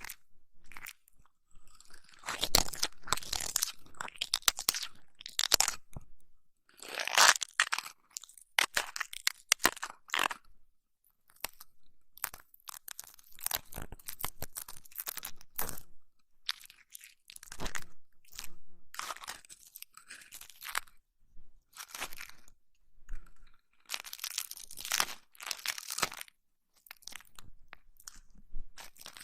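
Close-miked ASMR trigger sounds: crackly rubbing and crunching right on the microphone, coming in bursts of a second or two with short pauses between.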